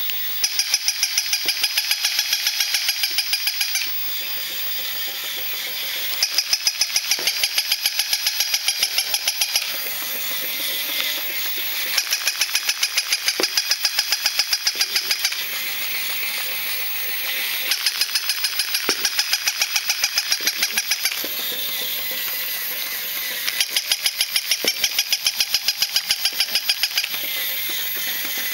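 Battery-powered plush walking toy dog's small motor and gears running, with rapid clicking at about eight clicks a second in stretches of about three seconds, alternating with a couple of seconds of steadier whirring.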